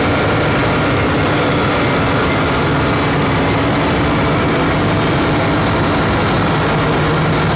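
Loud, steady engine drone with a constant hiss, unchanging throughout.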